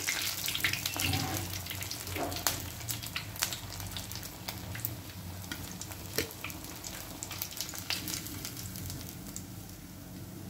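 Hot oil sizzling and crackling with many sharp pops around breadcrumb-coated paneer lollipops deep-frying in a kadhai. It dies down gradually as the pieces are lifted out of the oil with a slotted spoon.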